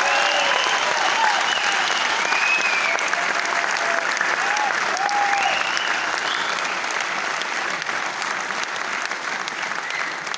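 Concert audience applauding after a song ends, with cheers and whistles rising and falling over the clapping in the first several seconds; the applause slowly dies down.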